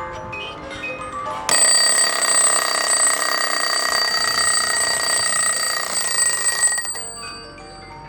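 Small table clock's chime melody, interrupted about a second and a half in by a loud alarm bell ringing steadily for about five seconds; the bell cuts off and the tinkling melody carries on.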